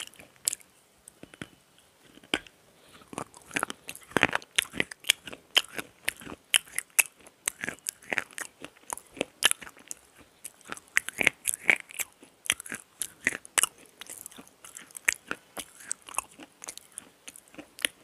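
Close-miked crunching and chewing of a bar of black slate pencil: sharp, dry crunches, sparse for the first couple of seconds, then coming several times a second.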